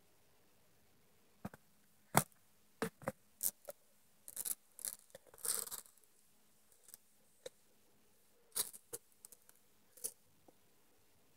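Red-eared slider's claws and shell clicking and scraping against the glass and fittings of its tank as it climbs: irregular sharp clicks and short scrapes, busiest in the middle.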